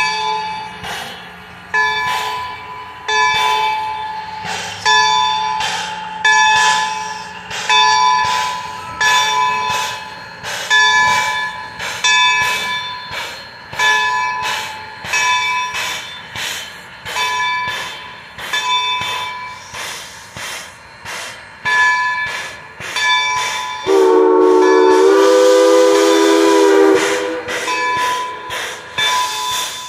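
Steam locomotive bell ringing about once a second, each stroke ringing on. About 24 seconds in, the Baldwin No. 26's CNJ three-chime steam whistle sounds one blast of about three seconds, a chord of several tones and the loudest sound here, while the bell keeps ringing.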